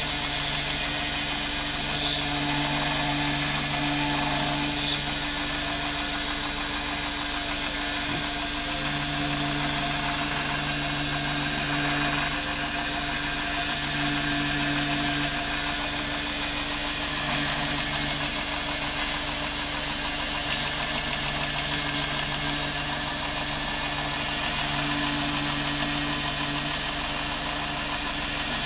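Belt grinder running steadily while a knife handle is held against its belt and contact wheel and sanded flat: an even motor hum that swells and fades every few seconds, under the hiss of the abrasive belt.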